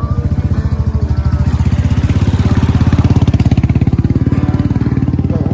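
Royal Enfield motorcycle engine running under way with an even, rapid pulsing beat, growing louder toward the middle.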